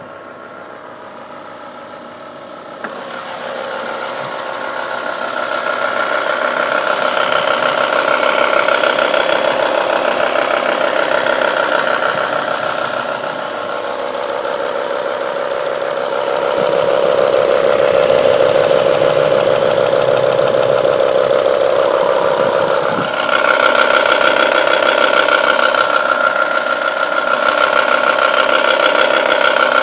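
BMW E60 M5's V10 engine running cold with a diesel-like clatter over its running sound. It gets louder about three seconds in and dips briefly near the end.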